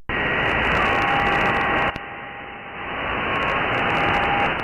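Static hiss from a CB radio receiver on an open channel between transmissions, with a few faint steady whistles from other carriers. The hiss comes in suddenly, dips for about a second in the middle, then swells back.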